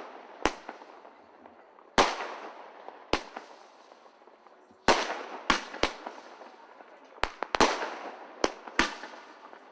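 Aerial fireworks bursting: about ten sharp bangs at uneven intervals, coming thicker in the second half, each trailing off in a short echo.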